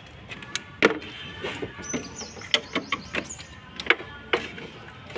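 A handful of sharp, scattered clicks and knocks from hands handling plastic parts and wiring connectors in a car's front end.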